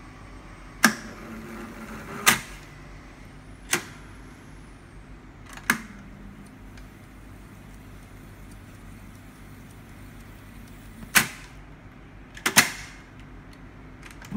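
Vortexion WVB reel-to-reel tape recorder's transport controls being switched: about seven loud mechanical clunks, spaced a second or more apart, with a pause of several seconds in the middle while the reels wind. A low steady hum from the deck runs under them.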